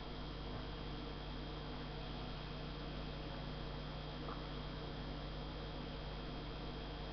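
Steady electrical hum and hiss with no other sound.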